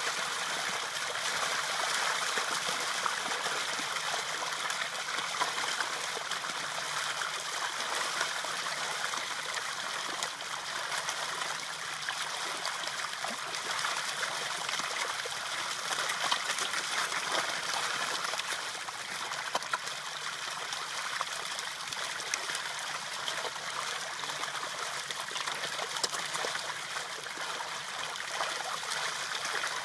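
Water running and trickling steadily, with a constant hiss and fine crackling splashes throughout.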